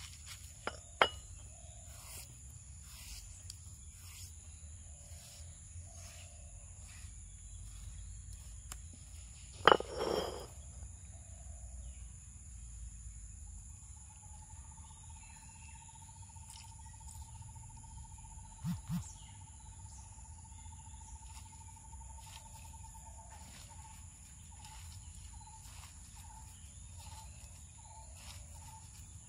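Steady high-pitched drone of crickets or other insects, with a few sharp knocks of the stone roller against the stone grinding slab, the loudest about a third of the way in and a soft double knock near the middle. From about halfway a steady whistled tone sounds, breaking into short repeated notes near the end.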